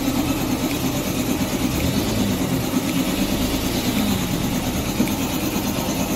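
Steady engine-like rumble with a dense background noise, even throughout.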